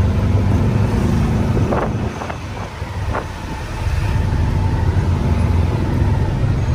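Tuk-tuk engine running steadily, heard from aboard the open passenger cab with wind and road noise. About two seconds in it eases off and quietens for a couple of seconds, with a few short clicks, then picks up again.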